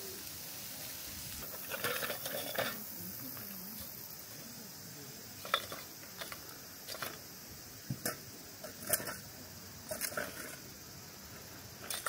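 Metal tongs setting lumps of charcoal into a ceramic shichirin charcoal brazier: a series of about a dozen sharp clinks and knocks from about five seconds in. A brief clatter about two seconds in comes from the grill being handled.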